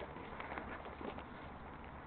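Faint outdoor ambience: a steady low background noise with a few short, scattered chirps and ticks.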